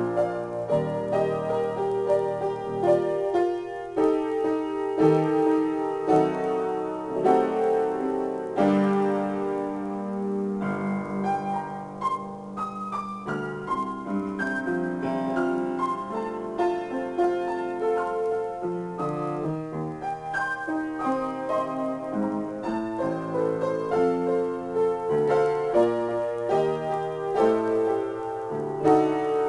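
Solo piano improvisation, played continuously with many notes ringing together and new notes struck throughout.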